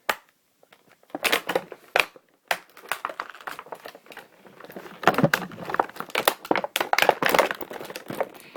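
Toy packaging crinkling and rattling in the hands as a toy figure is tugged free of the box, in a quick irregular run of crackles and clicks that gets busier about halfway through.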